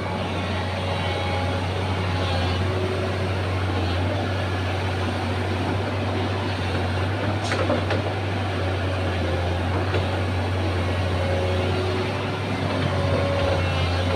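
Excavator's diesel engine running steadily, with a brief click about seven and a half seconds in.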